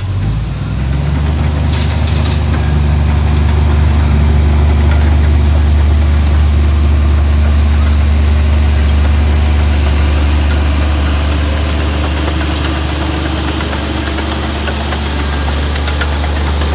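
Heavy diesel engine of an earthmoving machine running steadily under load, picking up slightly about a second in. A few faint clanks are heard.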